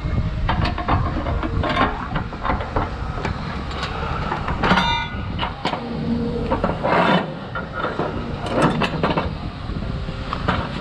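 Heavy vehicle rumbling, with repeated metallic clanks and rattles and a brief high squeal about five seconds in.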